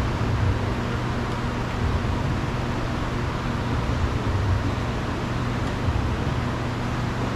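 Steady background hum with a low rumble and an even hiss, like a running machine or road traffic; no distinct tool clicks stand out.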